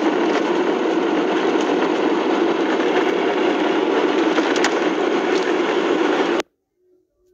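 Steady noise of a car being driven, heard inside the cabin; it cuts off abruptly about six seconds in and gives way to near silence.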